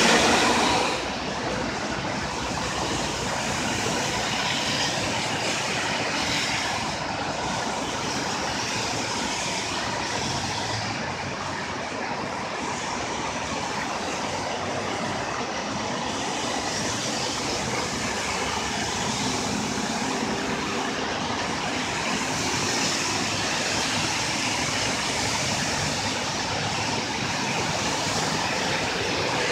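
Road traffic driving through a flooded street: a steady wash of engine and tyre noise, with tyres hissing and splashing through standing water and swelling gently as vehicles pass. A louder passage drops away about a second in.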